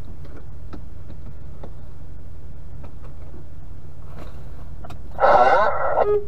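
Semi-truck air horn blasting for about a second, starting about five seconds in, then a short toot near the end, sounded at a truck that is stuck. Under it is a steady low hum.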